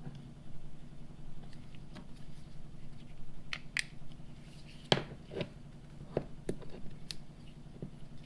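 A handheld metal multi-tool being handled and opened: a series of sharp clicks and snaps, the loudest about five seconds in, over a steady low hum.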